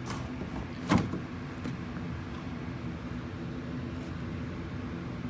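A single sharp plastic snap about a second in as a plastic under-tray corner piece is popped off a car's underbody by hand, over a steady low hum.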